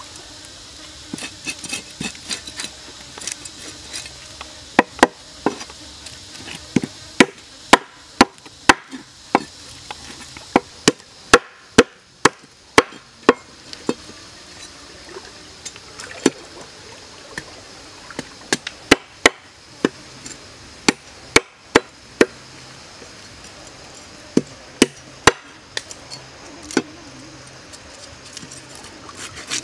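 Knife scaling a red fish on a wooden board: irregular sharp clicks and knocks as the blade scrapes off the scales and strikes the wood. Lighter, quicker scraping clicks for the first few seconds, then louder knocks about one to two a second.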